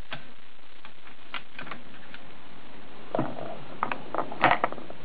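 A run of sharp mechanical clicks and clacks, sparse at first and then bunched together, the loudest near the end: the 7mm-08 rifle's action being worked after the cold-bore shot.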